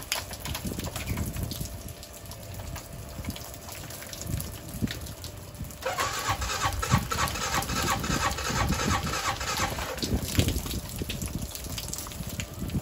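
2012 CFMoto Terralander 500 ATV engine being cold-started. About six seconds in the sound suddenly becomes louder and busier, then eases off some four seconds later.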